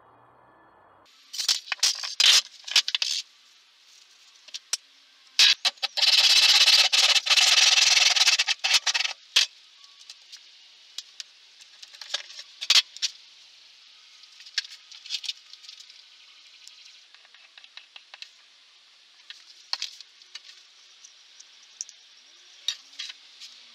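Tools and MDF parts being handled on a workbench: scattered clicks and knocks, short bursts of scraping, and a continuous scraping noise lasting about three seconds, starting about six seconds in.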